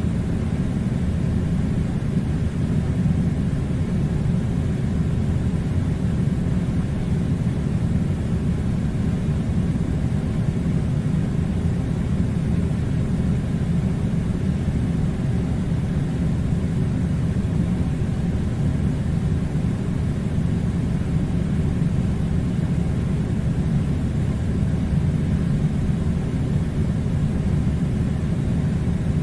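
Air conditioner running with a steady low hum.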